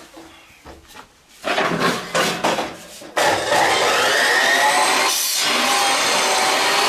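Electric cut-off saw cutting through bamboo, a loud steady whine with grinding noise that starts suddenly about three seconds in. Before it come a few loud knocks and scrapes.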